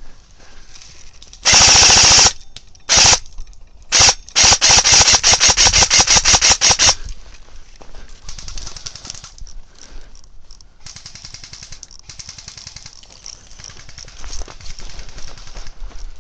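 Airsoft rifle firing full-auto, close to the microphone: a short burst, two brief ones, then a long run of rapid shots lasting about two and a half seconds. Softer, irregular rustling and crackling follows.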